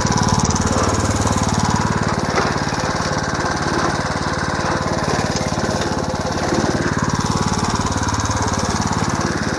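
3.5-horsepower small gas engine running steadily, driving a home-made one-third-scale mini hay baler.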